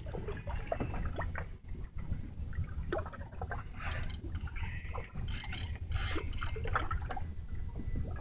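Water lapping and sloshing against a small boat's hull over a steady low rumble, with scattered light clicks and a few brief hissing rustles about halfway through.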